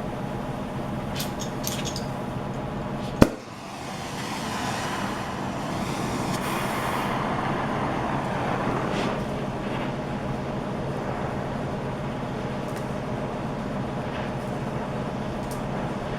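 Brazing gas torch being lit: a sharp pop about three seconds in as the gas ignites, then the flame hissing, swelling over the next few seconds and settling to a steady rush over a steady background hum.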